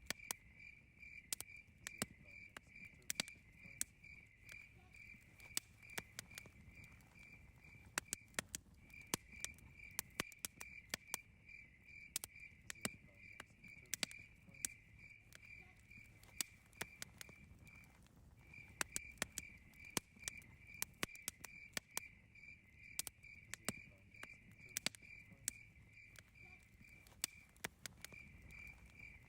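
Wood fire crackling with irregular sharp pops, over a cricket chirping steadily at about three chirps a second. The chirping pauses briefly three times.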